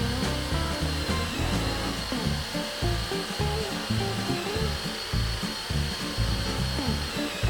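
Background music with a beat, over a cordless drill running steadily; the motor's high whine drops away near the end as it stops.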